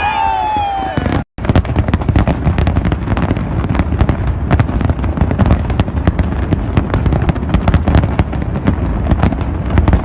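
Fireworks display: a dense, continuous barrage of bangs and crackles in quick succession. It follows an abrupt cut just over a second in, before which a few falling pitched tones are heard.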